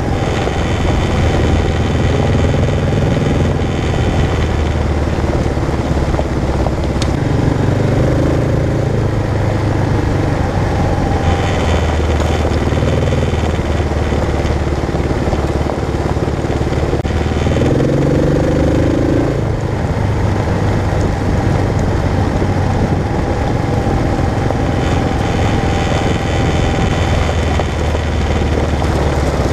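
Kawasaki KLR650's single-cylinder four-stroke engine running steadily as the motorcycle rides along a dirt road, with the engine note rising briefly a little past halfway.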